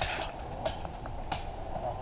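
Three short, sharp clicks about two-thirds of a second apart over a low rumble.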